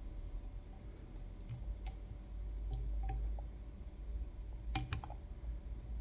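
Small sharp clicks of a lock pick and tension wrench working the pin stacks of a CISA AP3 lock cylinder: a few scattered ticks, then a louder quick cluster of clicks nearly five seconds in, over a steady low hum.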